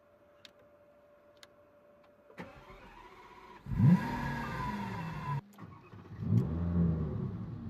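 Supercar engine starting up with a sharp rev a little over halfway in, then blipped again about two and a half seconds later, its pitch rising and falling with each rev. Before the start there are only a few faint clicks.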